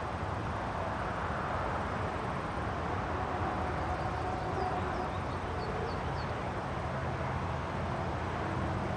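Steady outdoor wind noise, with a small bird giving a quick series of about five high chirps around the middle.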